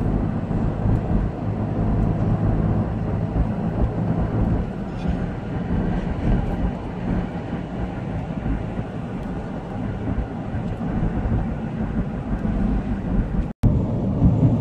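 Steady road noise inside a moving car's cabin: a low rumble of tyres and engine at road speed, briefly cut off near the end.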